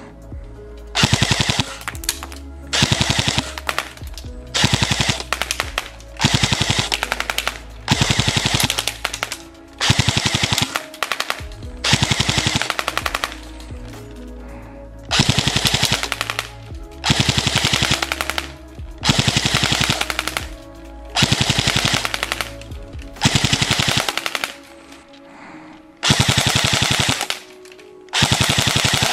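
Jing Gong M4 CQBR airsoft electric gun firing on full auto: about thirteen bursts of about a second each, roughly every two seconds. Each burst is a rapid rattle of the stock V2 gearbox cycling and shooting BBs. Background music plays underneath.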